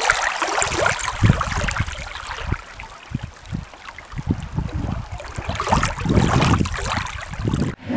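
Small waves lapping and splashing at the water's edge, recorded close to the surface: an uneven wash with irregular low splashes that swells about a second in and again near the end, then cuts off suddenly.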